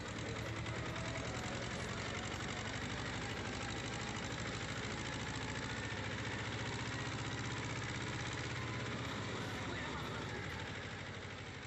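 Small tractor's engine running steadily while it drives along a dirt track, with a rapid even chugging. The sound fades out near the end.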